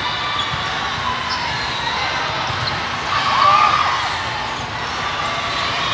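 Busy volleyball hall ambience: a steady din of many voices, with sneakers squeaking on the sport-court floor and balls being hit. It swells briefly about three and a half seconds in.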